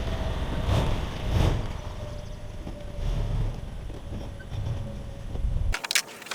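Low, steady rumble of a vehicle driving, with a faint steady whine and a few soft knocks. Just before the end it cuts off abruptly, and a few sharp clicks and knocks follow.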